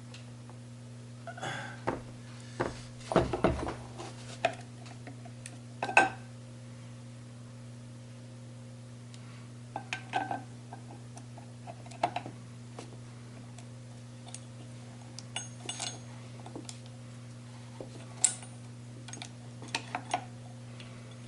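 Steel gearbox parts clinking and knocking as a synchro hub is worked by hand onto a Ford 2000E gearbox mainshaft: scattered sharp metallic clicks, a few in quick clusters with a brief high ring, over a steady low hum.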